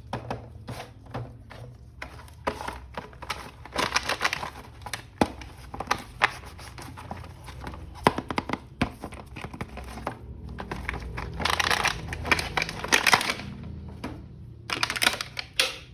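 Plastic packaging of a toy action figure crinkling and tearing as it is unwrapped, with irregular clicks and taps from handling. The crinkling comes in bursts, loudest near the middle and again near the end.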